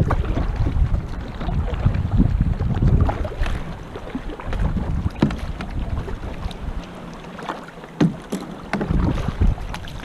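Gusty wind rumbling on the microphone as a kayak rides through rough chop, with water splashing and slapping against the hull now and then. The wind rumble eases for a couple of seconds past the middle, then picks up again.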